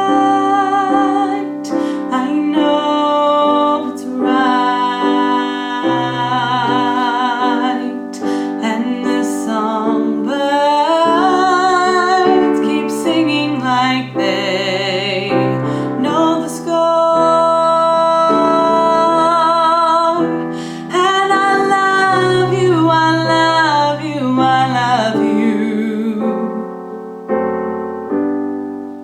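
A woman sings an alto line with vibrato over piano accompaniment. The voice stops about three seconds before the end, and the piano plays on alone.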